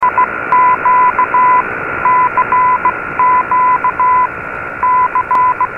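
Morse code 'CQ' sent over and over as a beeping tone of about 1 kHz in long and short beeps, received on a shortwave AM receiver. Steady static hiss and a steady whistle run under it, the sign of a weak, noisy signal.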